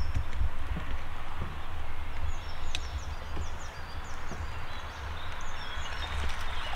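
Wind rumbling on the microphone over a steady outdoor hiss, with a small bird giving a quick run of short, high chirps about halfway through.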